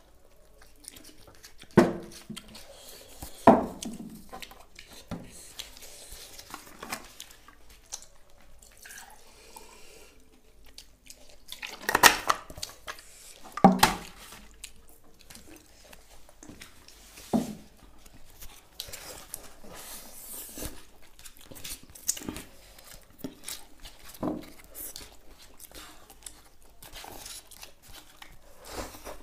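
Eating sounds at a table: forks scraping and tapping on foil-lined paper plates of noodles, with mouth sounds of eating and drinking, broken by a few louder knocks and clatters.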